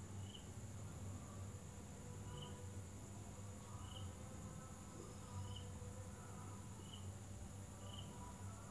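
Quiet room tone with a steady low hum, and a short high chirp repeating about six times at uneven gaps of one to two seconds.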